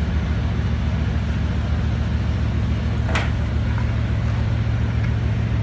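Bugatti Veyron's W16 engine idling with a steady low rumble as the car creeps along at walking pace. A brief sharp sound cuts in about three seconds in.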